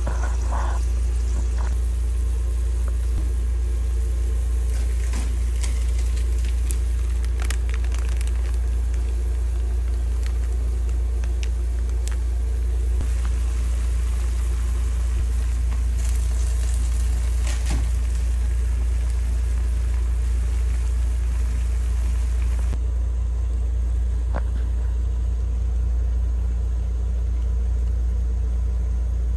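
Noodle soup cooking in a pan on a stove, with faint sizzling and bubbling and a few light clicks over a steady low rumble.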